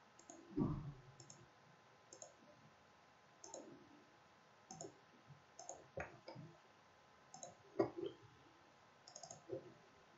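Faint computer mouse clicks, about a dozen at irregular intervals, some in quick pairs. There is a soft low thump about half a second in.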